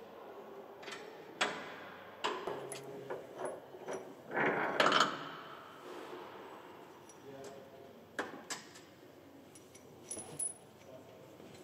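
Scattered metallic clinks and knocks of a wrench on bolts and a steel lock bracket as a transport lock is unbolted from a combine grain header, with one louder clatter lasting under a second about four and a half seconds in.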